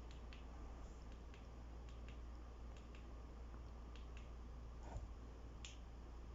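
Faint, irregular clicks of the push buttons on a ring light's control being pressed to change the light, with a soft knock about five seconds in.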